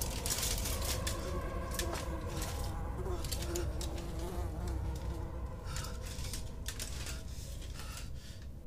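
Flies buzzing in a thin wavering hum over a low, steady drone, with scattered faint clicks; the sound slowly fades.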